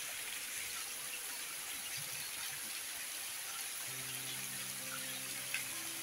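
Heavy rain pouring onto wet ground and puddles: a steady hiss with single drops splashing here and there. Soft held tones, like quiet background music, come in about four seconds in.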